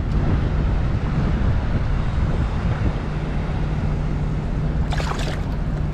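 Steady low rumble of wind buffeting the microphone over a flowing river, with a short splash of water about five seconds in as a released steelhead is let go by hand.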